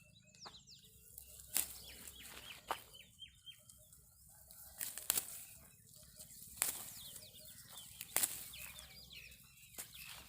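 Sharp irregular snaps and rustling every second or two, with chickens clucking and short bird chirps between them.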